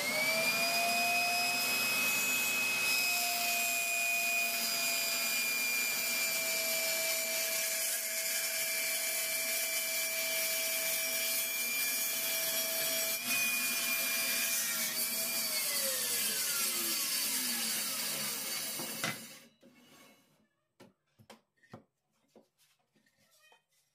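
A table saw motor and blade run with a steady high whine while a crosscut sled is pushed through the blade. About 15 seconds in the saw is switched off, and the whine falls in pitch over about four seconds as the blade spins down. A few light knocks of wood being handled follow.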